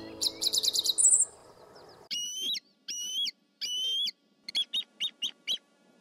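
Bald eagle calling in high, thin notes: a quick run of short notes, then three longer notes about half a second each, then a fast series of six short notes. The tail of guitar music fades out in the first second or so.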